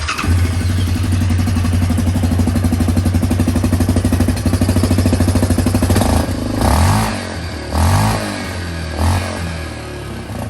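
Yamaha Grizzly 700 ATV's single-cylinder engine on its quiet stock exhaust, idling steadily, then given three short throttle blips that rise and fall before it settles back to a lower idle.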